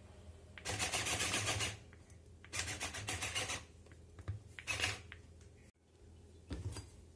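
Hand-powered mini food chopper whirring as its blades chop red onion in the clear bowl: three rasping strokes of about a second each, the last one shorter.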